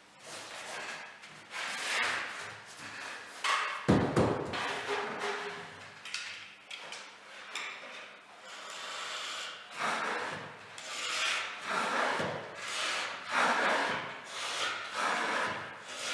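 A hand tool rubbing or scraping back and forth over a surface in repeated strokes, about one a second, with a heavier thump about four seconds in.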